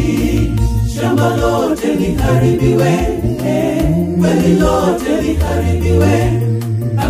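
A high school choir singing a cappella, in parts, with low voices holding long notes beneath the melody.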